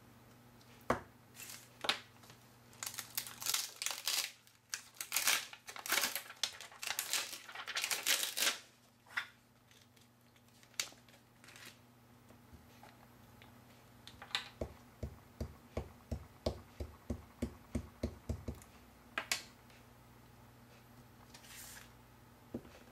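Clear plastic stamp sheet crinkling as a clear stamp is peeled off its backing and handled. Later comes a run of about fifteen short light taps, three or four a second, like an ink pad being dabbed onto a clear stamp on an acrylic block, then one firmer tap as it is pressed onto paper.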